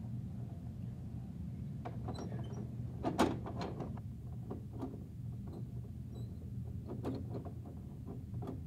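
Plastic toy garbage truck being handled: a series of short plastic clicks and knocks, the loudest about three seconds in, over a steady low hum.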